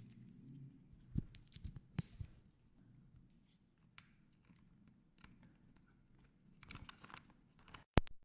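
Faint handling noise on a camera-top microphone as a 3.5 mm TRS cable is plugged into a Rode VideoMicro: scattered clicks, scrapes and rustles. Near the end come two sharp clicks, the loudest sounds, as the plug goes in.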